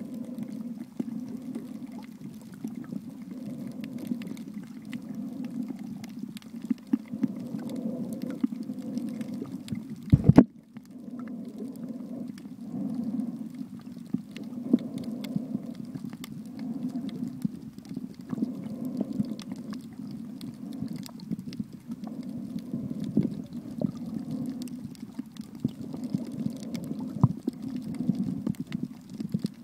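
Muffled underwater ambience heard through a waterproof camera housing: a steady low rumble with scattered faint clicks and crackles, and one loud knock about ten seconds in.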